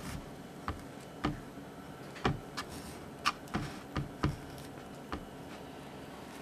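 Chef's knife cutting around an avocado on a wooden cutting board: about ten sharp, irregular clicks and taps as the blade works through the pebbly skin and around the stone while the fruit is turned.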